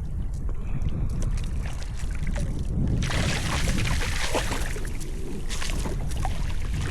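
Water sloshing and splashing at a kayak, growing louder about halfway through, over a steady low rumble.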